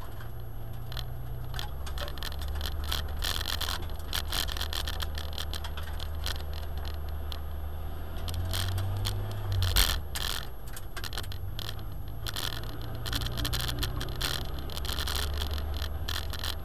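Simca 1000's rear-mounted four-cylinder engine running at low speed, heard from inside the car as a steady low drone, with constant clicking and rattling from the cabin. The engine note rises a little about eight seconds in and drops away just before ten seconds.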